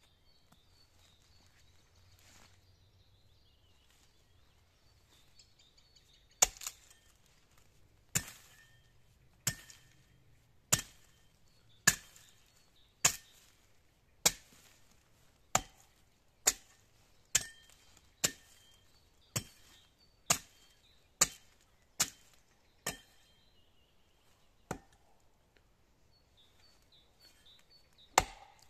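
Axe chopping a notch into the trunk of a standing pine tree: sharp blows of the steel head biting into wood, about one a second, starting some six seconds in. The blows stop for a few seconds near the end before one more.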